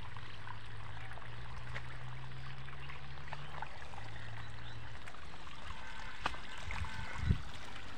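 Irrigation water pouring from a plastic pipe onto a flooded field, a steady rushing and splashing, with a low hum that fades out about halfway through and a low thud near the end.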